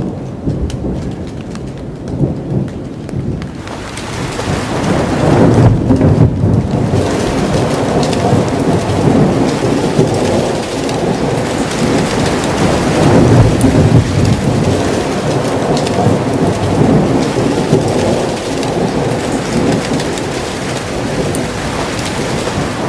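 Thunderstorm: steady heavy rain with thunder rumbling and rolling. The rumble swells about four seconds in and keeps going, with louder surges about six and thirteen seconds in.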